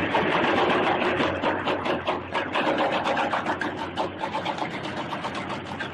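Demolition of concrete columns by an excavator: a dense, rapid clatter of crumbling concrete and falling rubble, loudest at first and easing off.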